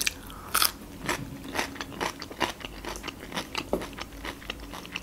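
Close-miked crunching as a fresh cucumber stick is bitten and chewed: one loud crisp crunch about half a second in, then a steady run of smaller crunches, about two or three a second.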